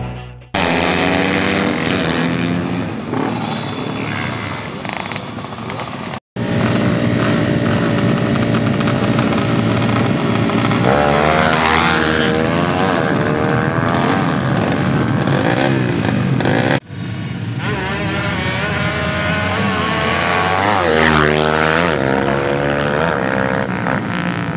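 Tuned four-stroke drag-race motorcycles revving hard and accelerating flat out in several short clips. The engine note climbs and falls again and again, and the sound breaks off abruptly between clips.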